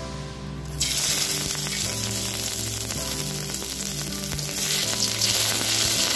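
Crushed ginger and green chilies frying in hot mustard oil in a wok: a loud sizzle that jumps up suddenly about a second in as they hit the oil, with a spatula stirring near the end. Soft background music plays underneath.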